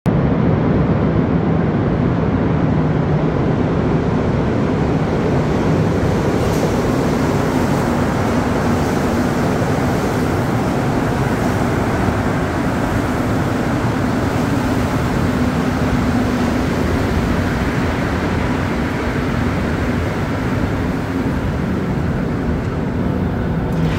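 Montréal Métro MR-73 rubber-tyred train pulling into the station along the platform: a loud, steady rumble with a low motor hum that rises in pitch partway through, easing slightly near the end.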